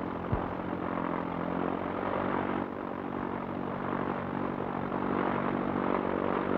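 Tractor engines rumbling steadily as they work a ploughed field, a low even drone with many overtones and no change in pace.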